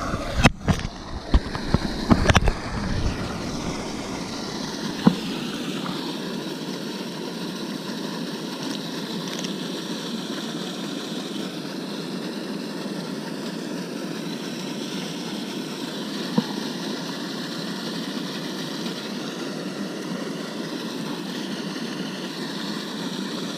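A few knocks and thumps, then a small boat's motor running steadily.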